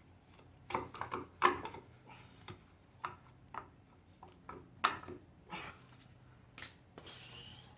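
Scattered light metallic clicks and knocks, about a dozen separate taps, as a pry bar works a stuck part loose on a Ford 4.6 V8 engine being torn down. A short hiss comes near the end.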